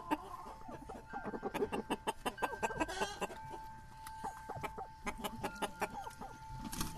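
Barred Rock chickens clucking close by, mixed with many short, irregular clicks and taps, over a thin steady high tone.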